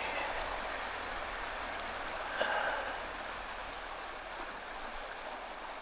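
Steady rush of a flowing stream over rocks, with a brief faint sound about two and a half seconds in.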